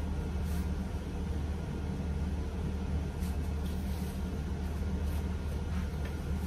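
A steady low hum with faint fabric rustles as a shirt is knotted at the waist.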